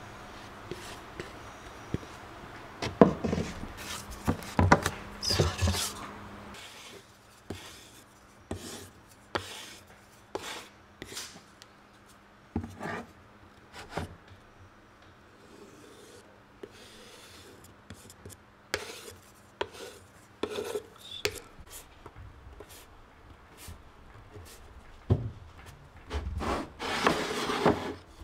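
Scraping and tapping of a spatula against a wooden board, with scattered knocks of wooden pieces being handled on a workbench. A faint steady hum runs under the first few seconds.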